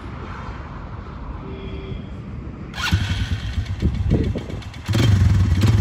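Polaris Phoenix 200 quad's small single-cylinder four-stroke engine running, with the throttle blipped into louder revs about three seconds in and again twice more.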